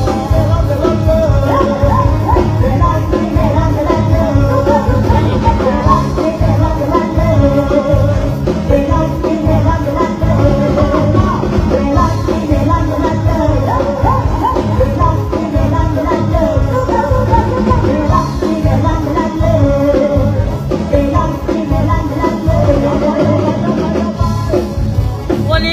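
A woman singing an Isan luk thung song into a microphone over amplified band music with a steady bass beat, during a stage sound check.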